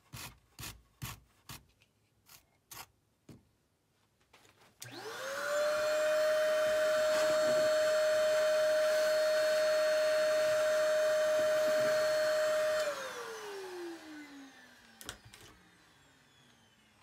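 A red Surform rasp shaving the scenery in about eight quick strokes. About five seconds in, a vacuum cleaner is switched on: its motor whines up to speed and runs steadily for about eight seconds as the hose takes up the shavings, then it is switched off and winds down with a falling whine.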